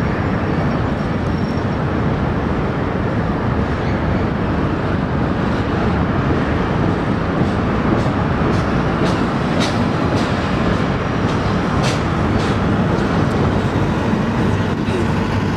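Container freight train's cars rolling across a steel truss railroad bridge: a steady loud rumble and clatter of wheels on the rails, with a few sharp clicks about halfway through.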